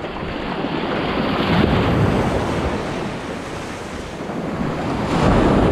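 Ocean surf washing in at the water's edge: two waves swell up and break, the second and louder one near the end.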